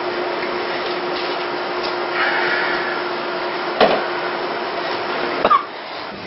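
Steady whirring machine noise with a constant hum, like a running household appliance. A sharp knock comes about four seconds in, and the whir drops away shortly before the end.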